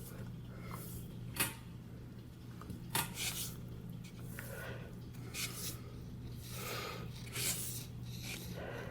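Damp grout sponge rubbing and wiping across freshly grouted ceramic wall tiles in short strokes, with a couple of sharp clicks and a steady low hum underneath.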